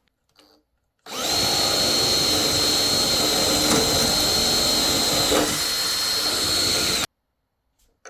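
Electric drill running at a steady speed with a high whine, starting about a second in and cutting off suddenly after about six seconds.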